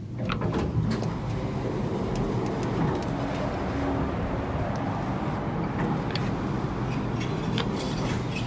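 Hitachi passenger elevator stopped at a floor with its doors opening as the door-open button is pressed: a few clicks near the start, then a steady mechanical rumble with scattered light clicks.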